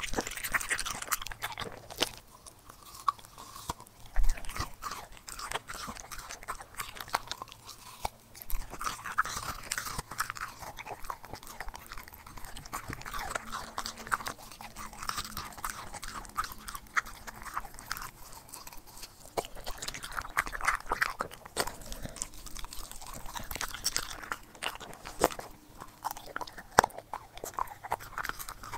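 A corgi chewing and crunching raw food, bite after bite, in runs with short pauses.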